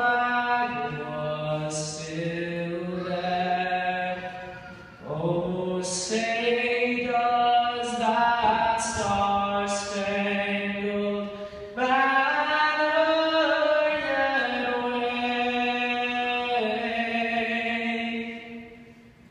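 A man singing the national anthem solo, holding long notes that change pitch slowly, with short breaths between phrases.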